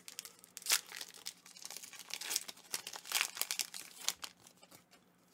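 Foil Pokémon TCG booster pack wrapper being torn open and crinkled in the hands: a run of irregular sharp crackles that thins out near the end.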